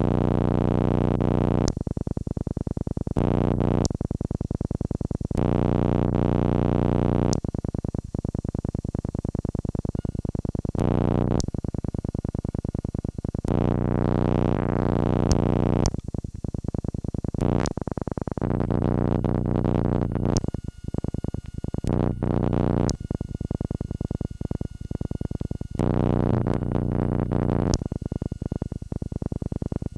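Synthesizer music built on sustained low chords, chopped into short segments that switch abruptly every second or two.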